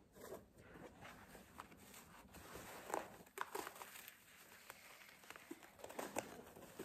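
Faint rustling and crinkling of packaging as a jute welcome mat is unwrapped, with a few sharper crackles about 3 seconds in and again near 6 seconds.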